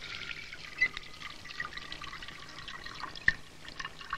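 Water running from a tap into a washbasin, splashing and dripping as someone washes his face.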